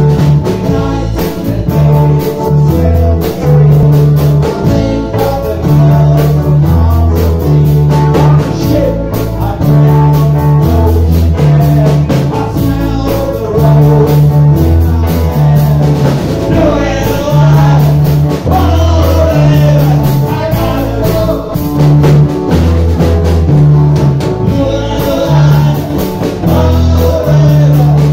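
Live band playing a song through a PA: drum kit, electric guitar and a heavy, steady bass line, with a man singing into a microphone in places.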